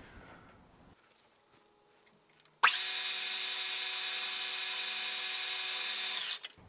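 Metal lathe running and taking a facing cut with the tool on the spinning work: a steady high-pitched whine with many overtones. It starts suddenly about two and a half seconds in and stops abruptly shortly before the end.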